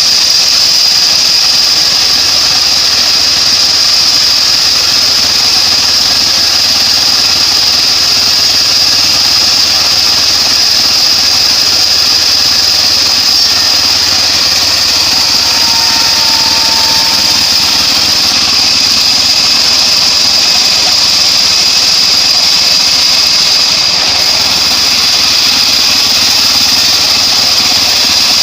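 Homemade bandsaw sawmill running steadily: a constant engine-like drone with a steady high-pitched whine over it.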